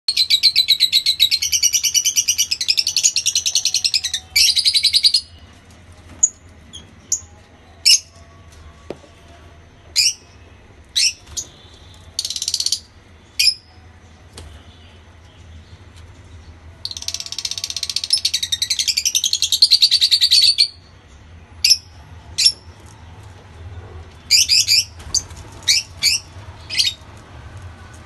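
African lovebirds calling in an aviary: two long stretches of rapid, high-pitched chattering, one at the start and one past the middle, with single sharp chirps scattered between.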